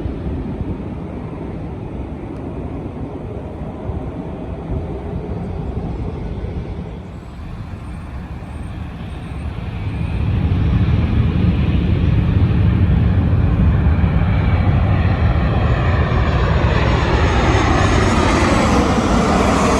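Jet airliner on final approach passing low overhead. A deep engine rumble swells from about halfway and is loudest near the end, with a swirling, phasing sweep in the sound as the aircraft closes in.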